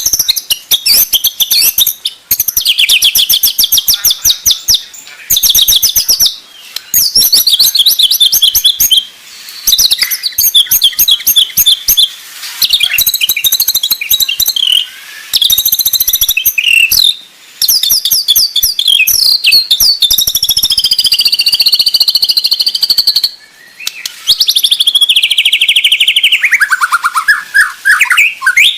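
White-rumped shama singing a fast, varied song of high whistles and rapid trills in phrases with brief pauses between them. Near the end comes a long run of quick notes stepping down in pitch.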